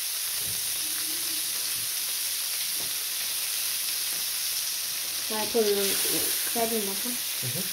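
Fish fillets sizzling in butter on a hot flat-top barbecue griddle: a steady frying hiss.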